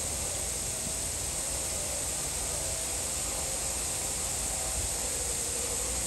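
Garden hose spraying water in a steady hiss.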